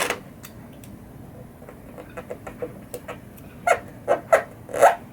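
Short squeaks and light taps of fingers pressing and rubbing a clear Mylar leveling disc down onto a pinball playfield insert: scattered small clicks, then four louder squeaks in the last second and a half.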